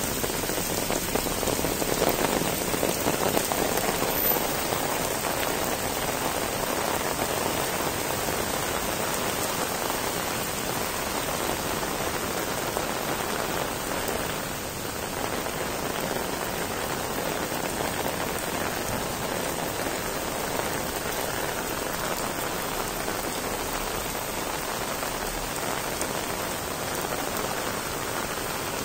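Heavy rain falling steadily on stone paving, a dense, even hiss of drops that dips slightly about halfway through.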